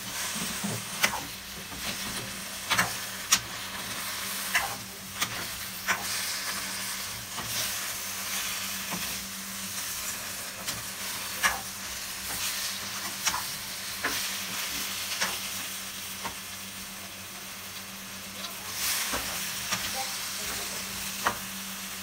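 Chopped vegetables sizzling in a hot pan while a spatula stirs and tosses them, with sharp irregular taps and scrapes of the spatula against the pan.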